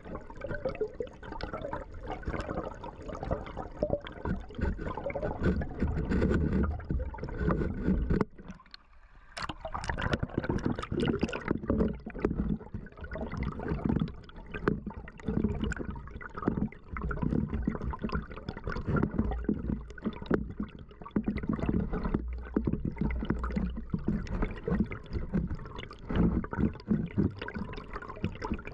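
Mountain-stream water gurgling and rushing over rocks, a dense, uneven burble with a low rumble. It drops away briefly about eight to nine seconds in, then returns.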